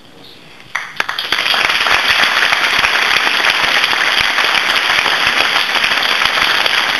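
Audience applauding, breaking out suddenly about a second in and then holding steady as dense, even clapping.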